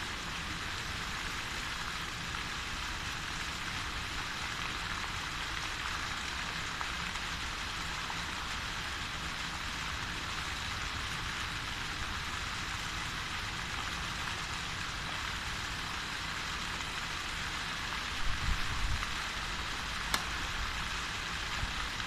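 Steady splashing hiss of a plaza fountain's water jets. Low rumbles come in near the end, with a single sharp click about twenty seconds in.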